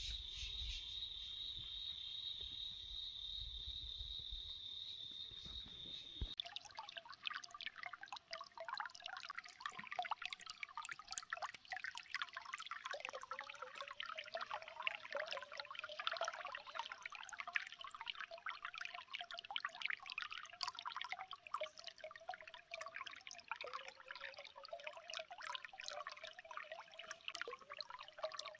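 Water from a small natural spring trickling and gurgling, with a wavering bubbling tone and many small drips and splashes. For about the first six seconds there is instead a steady high-pitched hiss with a low rumble, which cuts off abruptly as the trickling begins.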